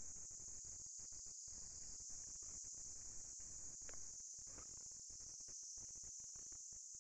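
Steady, high-pitched shrilling of an insect chorus, unbroken throughout.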